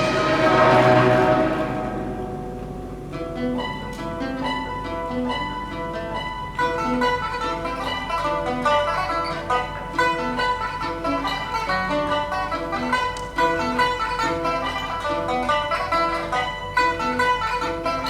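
Chinese chamber ensemble playing. A loud chord rings and dies away over the first three seconds, then plucked strings such as pipa and zhongruan take up a quick, steady repeating figure of short notes.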